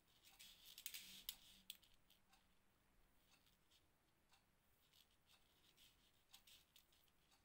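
Near silence with faint clicks and light scratching from crochet handwork: a hook, thread and seed beads being handled. The clicks come thickest from about half a second to two seconds in, then sparse.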